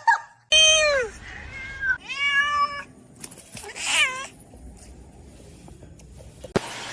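A domestic cat meowing three times, about half a second, two seconds and four seconds in, the first call falling in pitch. A single sharp click comes near the end.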